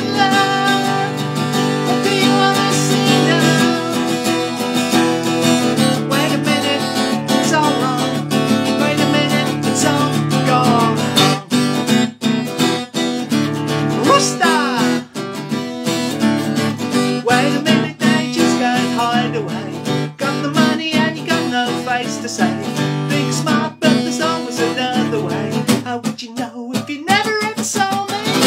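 A man singing while strumming an acoustic guitar, a steady strummed rhythm under his voice.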